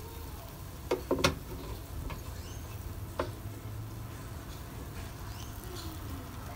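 Metal tongs clicking against a ceramic plate as a cooked steak is handled: a few sharp clicks around a second in, then single ones at about two and three seconds, over a faint steady hiss.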